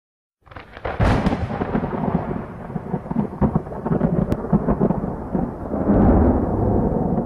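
Thunder-and-lightning sound effect: a rolling rumble shot through with sharp crackles, starting about half a second in, loudest from about a second in, and dying away near the end.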